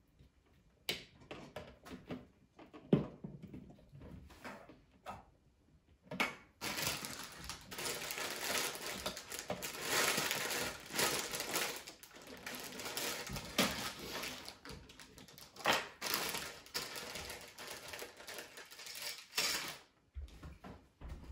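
Small plastic Lego pieces being handled and rummaged through: a few scattered clicks at first, then about fourteen seconds of continuous rattling and clicking that stops shortly before the end.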